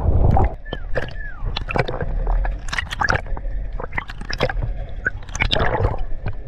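Sea water gurgling and sloshing around a camera held at and just under the surface, with many sharp bubble pops and clicks.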